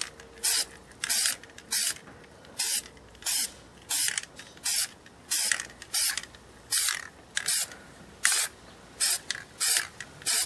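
Aerosol can of flat black spray paint sprayed in short, even bursts, about three every two seconds.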